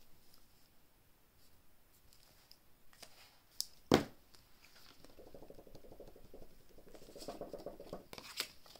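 Paper banknotes and cash-stuffing envelopes being handled: soft rustling and scraping, one sharp click about four seconds in, and a few seconds of scratchy rubbing in the second half.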